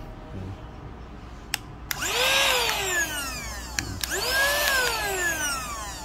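Battery-powered handheld mini vacuum cleaner switched on briefly twice, each time with a click of the switch, its motor whining up to speed and then winding down in pitch as it is switched off.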